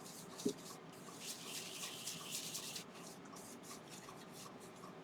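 Cloth rubbing lemon oil into the surface of a turned ash bowl: soft, hissy rubbing strokes, with one light knock about half a second in.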